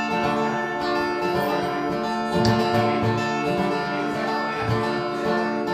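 Acoustic guitar strummed steadily, an instrumental passage of a song with no singing.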